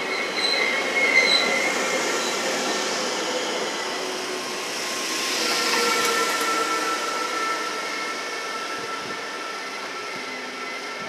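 An NS Sprinter (SGMm) electric multiple unit rolls slowly into the platform, arriving and coming to a stop. Thin high squeals from wheels and brakes come in the first two seconds, a swell of hiss follows about five seconds in, and a steady whine runs on after it.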